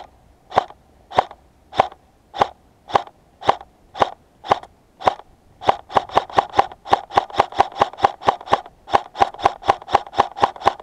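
M4A1 airsoft electric gun (AEG) by SRC/Parabellum firing, each shot a sharp snap. It shoots about two a second for the first five seconds, then switches to a quicker string of about five a second.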